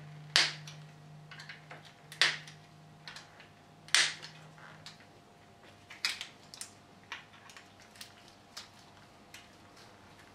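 Sharp metallic clicks and taps of an Allen key working the four screws of the oil filter cover on a Norton Commando 961 engine. Three louder clicks come about two seconds apart, followed by lighter, scattered ticks. A faint low hum sounds under the first half.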